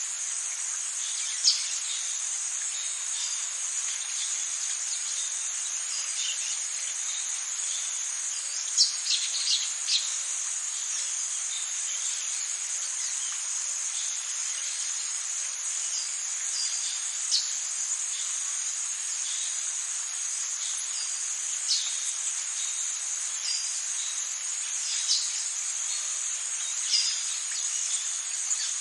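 Tropical rainforest ambience: a steady, high-pitched chorus of insects, such as cicadas and crickets, with short, sharp bird chirps every few seconds and a quick run of several chirps about nine seconds in.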